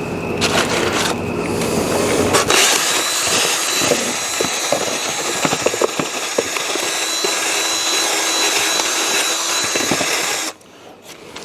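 Power drill spinning a spade bit, boring into the rigid foam of a deer mount's form, running steadily with a high motor whine and cutting off suddenly near the end.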